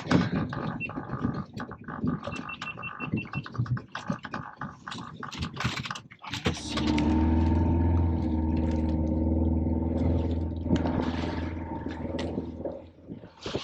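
Background music: a busy, clicking beat for the first six seconds, then a held synthesizer chord over heavy bass.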